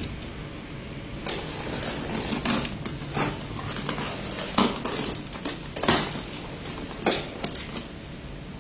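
A box cutter slitting the tape along a cardboard box: a run of scratchy cutting and scraping, with several sharp strokes, starting about a second in and stopping shortly before the end.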